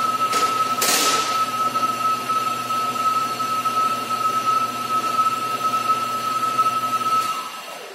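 Small cordless electric impact wrench running steadily with a high motor whine while tightening a suspension nut. The whine slides down in pitch as the motor winds down and stops about seven seconds in.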